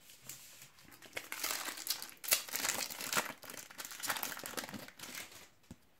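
Foil trading-card packet of Panini Adrenalyn XL cards crinkling as it is handled and torn open, starting about a second in and dying away shortly before the end.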